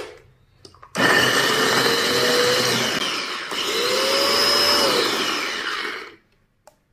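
Small electric mini food chopper running with its blades cutting red chilies and shallots into a coarse chop. It starts about a second in and runs for about five seconds in two pushes, with a short dip halfway, its motor pitch rising and falling. It then cuts off.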